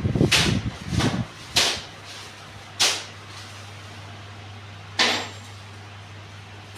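A second or so of clattering knocks, then three short, sharp noises spaced a second or two apart, over a steady low hum.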